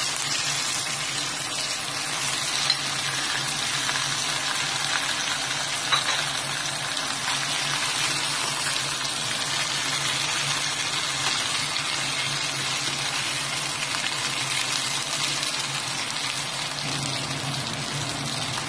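Pork chops sizzling steadily as they fry in butter and garlic in a pan, with two sharp clicks, about three seconds apart.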